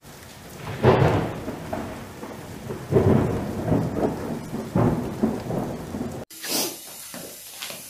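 Thunder over steady rain: three rolling rumbles about two seconds apart, cutting off abruptly about six seconds in. After the cut, quieter room sound with a few faint knocks.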